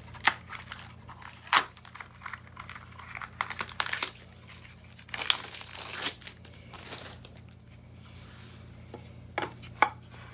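Handling noise while gaming-chair base parts are fitted together: crinkling and rustling, with several sharp clicks and knocks of hard parts, over a low steady hum.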